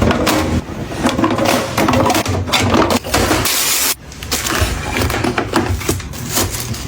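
Close-up handling sounds of kitchen restocking: packaging rustling and crinkling, with knocks and clatter of items being set down and a brief hiss about halfway through.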